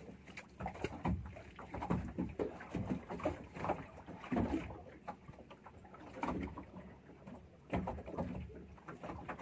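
Sounds aboard a small fishing boat at sea: irregular knocks against the hull and water noise.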